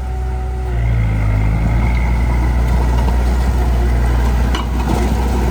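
Heavy diesel machinery engine running steadily, growing louder as it revs up about a second in, with a brief click near the end.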